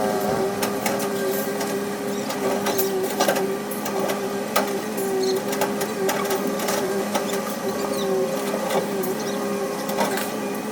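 Caterpillar 320C hydraulic excavator working: its diesel engine and hydraulics run with a steady, slightly wavering hum, and frequent short sharp clanks and knocks are scattered across it.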